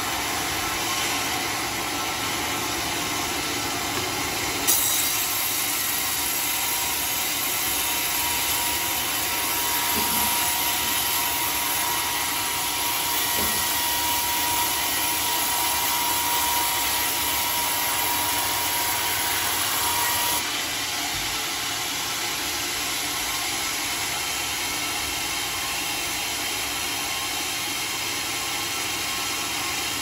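Homemade sawmill running steadily, its blade cutting lengthwise through a teak beam from about five seconds in until about twenty seconds in, with a thin steady whine during the cut; after that the machine runs on without the cutting hiss.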